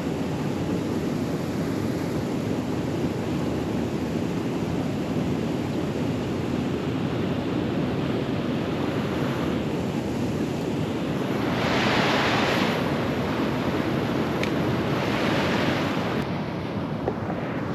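Steady rushing noise of wind on the microphone and flowing river water, swelling louder twice in the second half.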